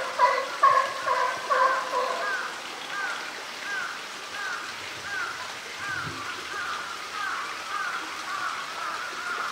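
A bird calling over and over, about two calls a second. The first calls are the loudest, then they go on as a steady run of fainter, downward-falling notes.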